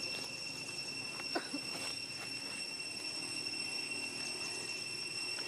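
Insects shrilling steadily in several high-pitched tones, with one short squeak falling in pitch about a second and a half in.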